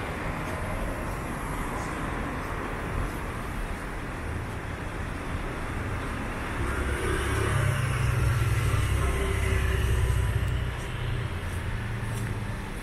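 Street traffic ambience with light traffic. A motor vehicle's engine rumbles louder for a few seconds in the second half, then fades back.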